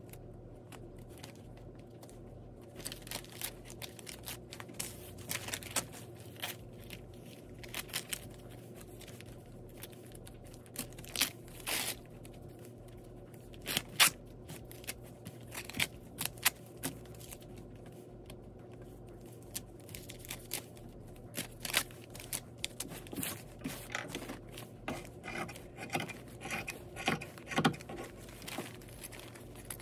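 Paper-backed foundation-pieced quilt blocks being handled and pinned: the foundation paper rustles and crinkles in short irregular bursts. Near the end, scissors snip through the paper and fabric along the seam allowance.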